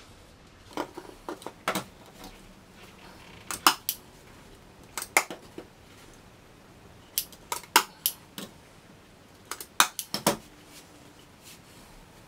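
Hand-squeezed staple gun firing staples through upholstery fabric into a plywood chair-seat base: sharp metallic snaps coming in short clusters every second or two.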